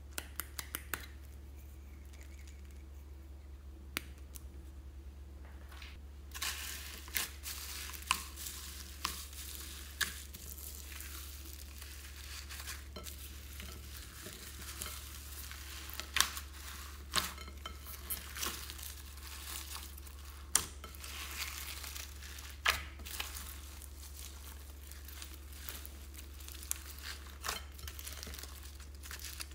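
Clear slime being squished and mixed by hand with foam beads, floam and sprinkles in a glass bowl: sticky crackling and popping with sharp clicks. After a few isolated clicks, it starts in earnest about six seconds in and goes on densely. A low steady hum lies underneath.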